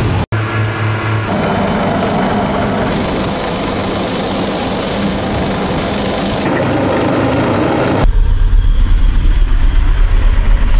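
A steady rushing engine-and-wind noise, which gives way abruptly about eight seconds in to the loud, rapid, regular beat of two military helicopters' rotors flying low over the sea.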